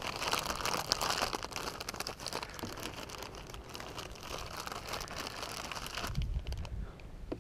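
Clear plastic packaging bag crinkling as it is handled and opened, with a brief low rumble near the end.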